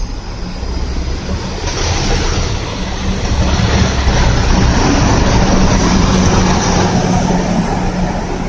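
MAN single-deck city bus driving past close by, a steady low engine drone under a broad rush of noise that swells about two seconds in and stays loud.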